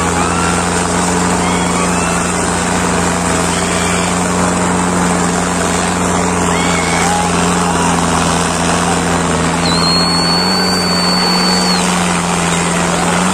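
Mahindra tractor's diesel engine running hard and steady under heavy pulling load, with its front wheels lifting off the ground; its pitch steps up slightly about ten seconds in. Short shouts from the crowd over it and a long high whistle about ten seconds in.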